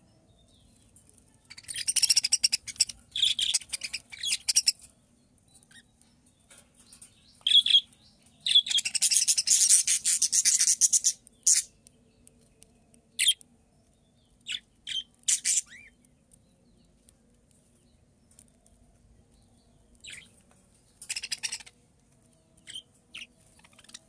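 Budgerigars chattering in loud raspy warbling bursts, with short sharp chirps in between. The longest bursts come about two to five and eight to eleven seconds in, with another near the end.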